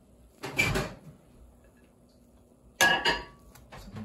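A serving spoon scraping and clinking against a cooking pot and ceramic plates as rice is dished out: two short clatters, one about half a second in and a louder one near three seconds.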